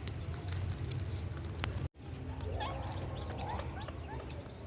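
Indian ringneck parrot giving short, squeaky chirps in the second half, after scattered clicks, over a steady low hum. The sound cuts out completely for an instant just under two seconds in.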